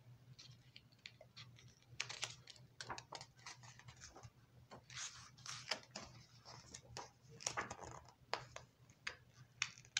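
Paper page of a hardcover picture book being turned and pressed flat by hand: a faint run of crinkles, rustles and soft clicks.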